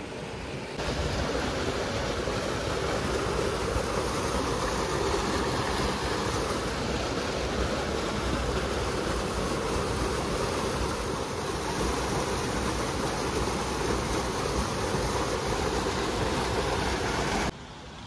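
River water rushing over rocks, a loud steady noise that begins abruptly about a second in and cuts off shortly before the end.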